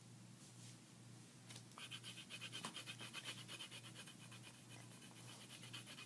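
Faint, rapid back-and-forth scratching of a colouring tool on paper, several strokes a second, starting about a second and a half in.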